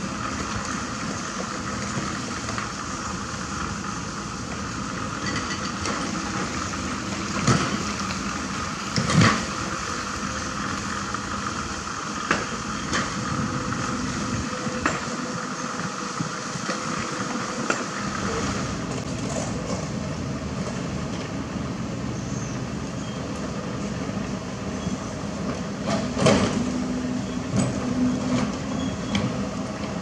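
Kobelco SK75 mini excavator's diesel engine running steadily with a high whine, while its steel bucket digs into rocky soil with a few sharp clanks and knocks, the loudest about nine seconds in and again near twenty-six seconds.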